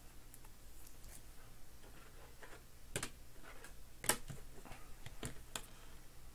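Trading cards being handled and slipped into clear plastic sleeves and holders: scattered soft clicks and plastic taps, the sharpest about three and four seconds in.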